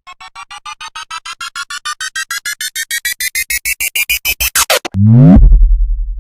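Synthesized build-up sound effect: a string of short electronic beeps that speed up, get louder and rise steadily in pitch, ending in a quick sweep, then a heavy deep bass drop at about five seconds that pulses and fades.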